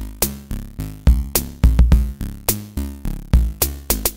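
Electronic background music with a drum-machine beat and deep bass notes.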